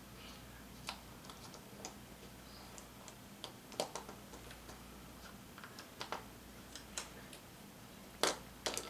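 Irregular light clicks and taps of small plastic parts being handled and fitted: the dogs of a washing-machine agitator's one-way clutch being set into place, with a sharper pair of knocks near the end.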